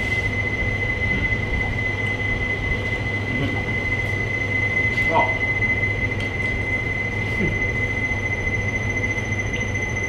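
Steady low machine hum with a constant high-pitched whine over it, unchanging throughout.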